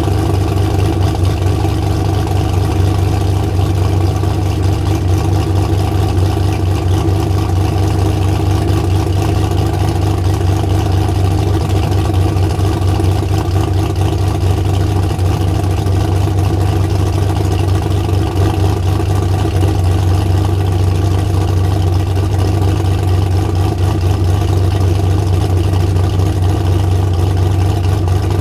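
Turbocharged LM7 5.3-litre V8 in a Chevy S-10 pickup idling steadily.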